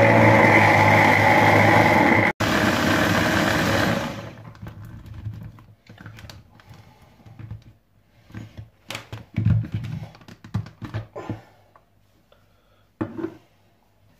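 Hand blender motor running on its chopper attachment, chopping tomatoes and peppers to a paste, then stopping about four seconds in. Scattered plastic clicks and knocks follow as the motor unit is lifted off the chopper bowl and set down, with one sharper knock near the end.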